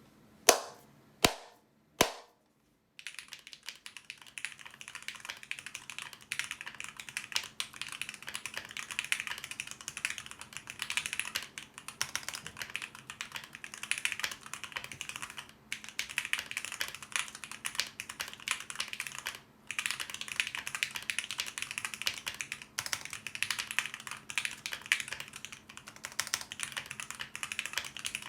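Three loud, sharp clicks, then continuous fast typing on a custom 65% mechanical keyboard, the Maker Keyboards Phantom, with lubed and filmed Lavender switches, an FR4 plate, an o-ring gasket mount and ePBT keycaps. It gives a consistent clack, with a couple of brief pauses.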